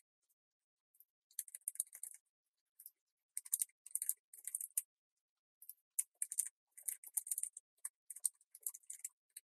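Computer keyboard being typed on: several runs of quick keystrokes separated by short pauses.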